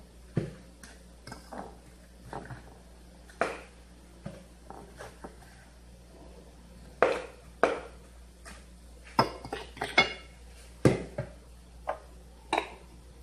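A metal utensil clinking and knocking against a ceramic bowl as fried dough balls are rolled in cinnamon sugar. The knocks are irregular, with the loudest near seven and eleven seconds in and a quick run of ringing clinks around ten seconds.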